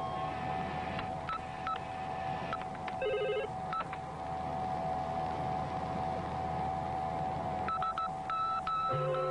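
Electronic bleeps and beeps of a science-fiction spaceship computer console over a steady electronic hum, with a quick warbling burst of tones about three seconds in. Low synthesizer notes come in near the end.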